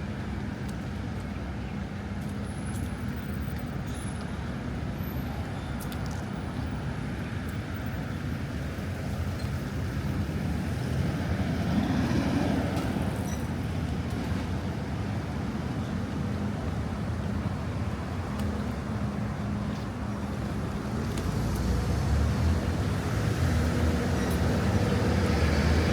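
Road traffic on a city street: engines running and tyres hissing on the road. One vehicle passes close about twelve seconds in, and another grows louder near the end.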